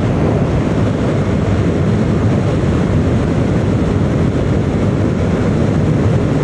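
Steady wind rush buffeting the microphone of a motorcycle moving at road speed, mixed with the bike's engine and tyre noise.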